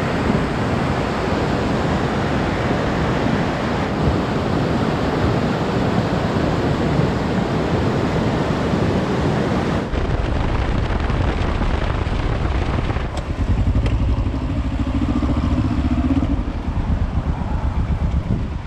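Kawasaki Versys 650 parallel-twin motorcycle being ridden, its engine running under steady wind rush on the camera microphone. About ten seconds in, the sound changes to a heavier, lower rumble.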